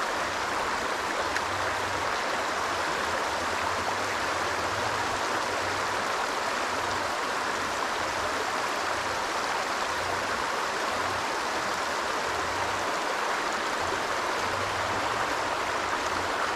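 Shallow stream running over a stony bed: a steady rush of flowing water.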